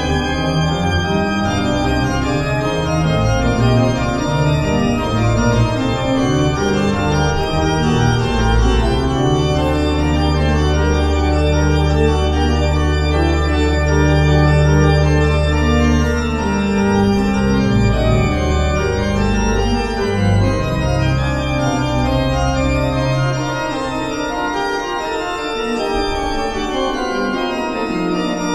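Pipe organ being played: sustained chords and moving parts over low pedal notes, with one long, deep bass note held from about nine to sixteen seconds in. The lowest notes drop away near the end.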